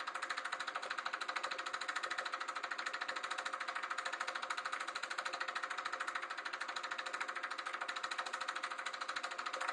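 Sankyo Dualux 1000 8mm film projector running, its film-advance mechanism making a rapid, even clatter.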